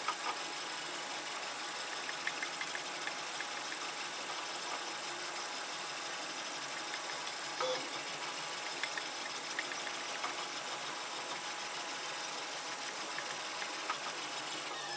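3D printer running: steady mechanical whirring with a high whine, with scattered faint ticks and a small click about halfway through.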